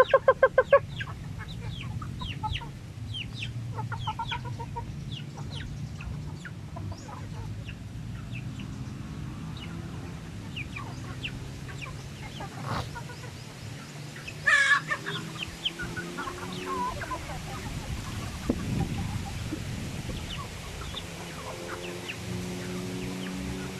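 A flock of free-range chickens, hens and roosters, clucking as they feed, with a quick run of loud calls at the very start and one loud squawk about fourteen seconds in.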